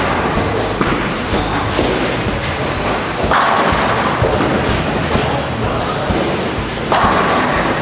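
Bowling alley pin deck: an AMF pinsetter sweeps away fallen pins with rattling and thuds, and a bowling ball rolls down the lane. Near the end the ball hits a full rack with a crash of pins.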